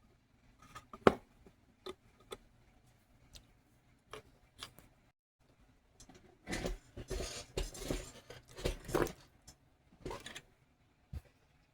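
Small metal tools and parts handled on a workbench: scattered clicks and taps, a sharp knock about a second in, then several seconds of scraping and rustling in the middle.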